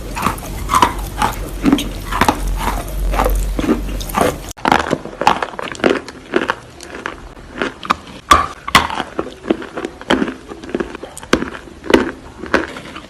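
Close-miked crunching of chalk being bitten and chewed: a fast, irregular run of sharp crunches. A low hum under the first few seconds stops suddenly about four and a half seconds in, and the crunching goes on.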